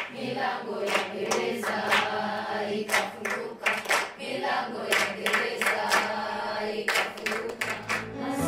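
A class of schoolchildren singing together in chorus, clapping their hands along at a steady pace, about twice a second.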